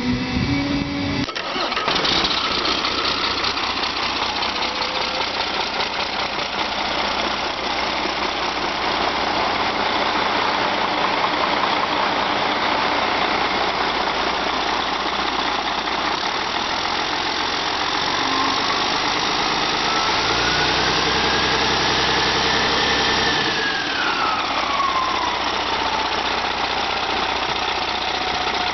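Mercedes OM460 (MBE4000) inline-six diesel truck engine running steadily on a test stand. In the second half a high whine slowly rises and then falls away.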